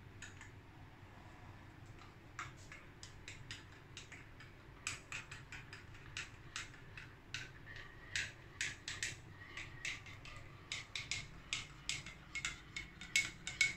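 Metal spoon stirring coffee in a ceramic mug, clinking against the sides: a few scattered clinks at first, then quick, repeated clinks from about halfway through, each with a short ring.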